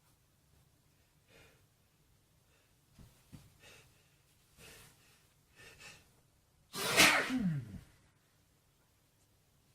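A man's allergic sneezing fit, set off by dust: a few short gasping in-breaths, then one loud sneeze about seven seconds in whose pitch falls away at the end.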